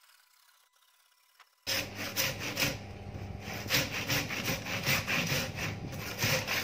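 Handsaw cutting across a thick wooden beam: rasping back-and-forth strokes, about two a second. They start abruptly a little under two seconds in, after near silence.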